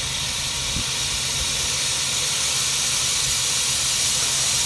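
Steady hiss of steam escaping from a 7.5-inch gauge four-truck Shay live steam locomotive, growing a little louder.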